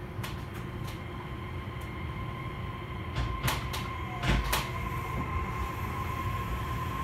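Running sound of an Osaka Monorail 3000-series train: a steady low rumble under a steady high whine, with a few sharp clacks about halfway through.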